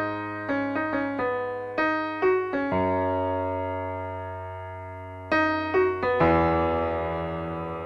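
The piano outro of a pop ballad, with no vocals. A short run of notes leads into a long chord that slowly dies away, and a final chord a little after the sixth second rings out and fades.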